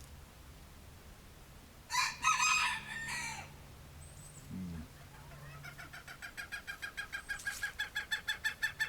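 Chickens calling: a rooster crows about two seconds in, for about a second and a half. From about five seconds on there is a steady run of rapid repeated calls, about three to four a second, growing louder.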